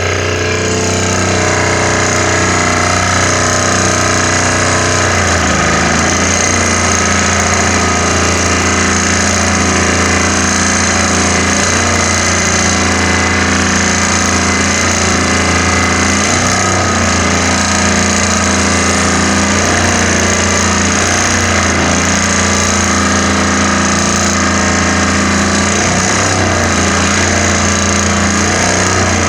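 Vibratory pile driver running continuously as it drives a rolled steel profile pile into the ground: a loud, steady machine drone with no separate hammer blows, its low note shifting slightly about five seconds in.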